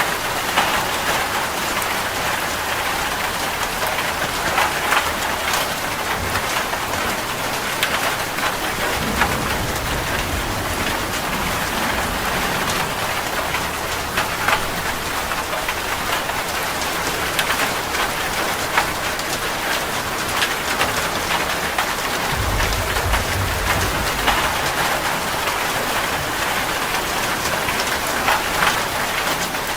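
Heavy rain falling steadily on a metal roof, a dense patter of drops. Low thunder rumbles come about nine seconds in and again a little past twenty-two seconds.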